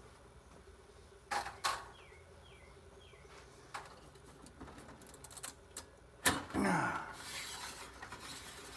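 Circuit boards being handled on a workbench: two sharp clicks, a few lighter ticks, then a louder knock a little after six seconds followed by a brief clatter and scraping as a board is moved.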